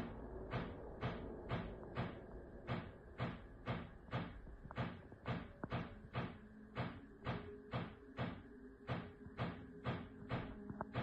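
Repeated banging knocks, about two a second in a fairly even rhythm, from a source that cannot be identified, heard inside a house.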